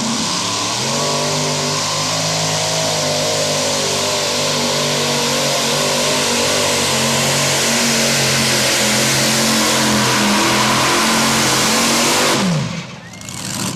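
Multi-engine modified pulling tractor with supercharged engines running flat out under the load of the sled. The engine note climbs about a second in and holds steady and loud, then falls away sharply near the end as the throttle is cut.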